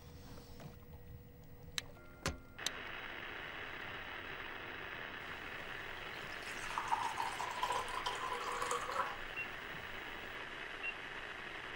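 Coffee poured from a glass carafe into a ceramic mug for a few seconds, over a steady hiss. A few sharp clicks about two seconds in.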